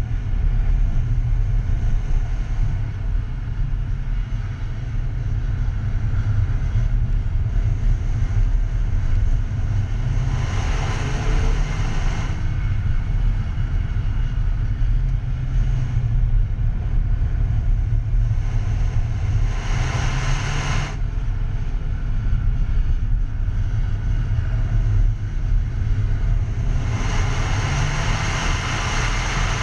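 Alfa Romeo cars running on a race circuit: a steady low rumble of engine and road noise, swelling louder about ten seconds in, about twenty seconds in, and near the end.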